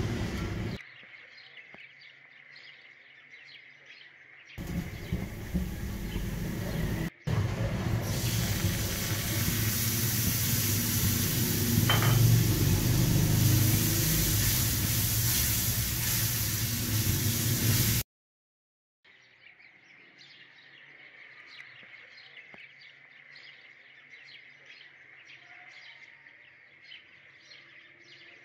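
A milk-and-flour mixture sizzling in a hot non-stick frying pan while it is stirred, in two loud, even stretches of a few seconds and about ten seconds. In the quieter stretches between and after them, birds chirp in the background.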